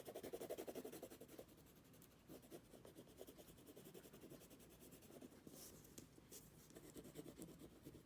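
Faint, rapid back-and-forth scribbling of a drawing tool on paper, colouring in an area. The strokes are densest for the first second or so, then lighter and more scattered.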